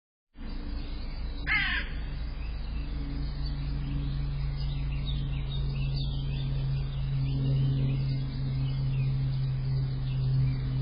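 One harsh caw from a bird of the crow family, about a second and a half in. Faint small-bird chirps follow over a steady low hum.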